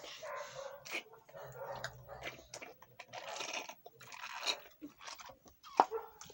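Crunchy food being chewed close to the microphone, in irregular crunching bursts, with one sharp click a little before the end.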